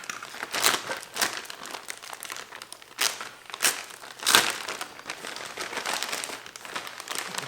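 Plastic packaging wrap crinkling and rustling in irregular bursts as it is handled, with louder crackles about three and four and a half seconds in.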